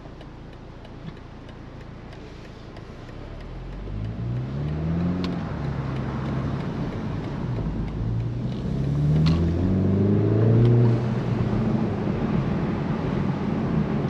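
BMW Z4 sDrive30i's turbocharged four-cylinder engine, at first humming quietly at light throttle, then accelerating from about four seconds in. Its note rises in pitch, drops back at each upshift and climbs again over several pulls, and is loudest about three-quarters of the way through.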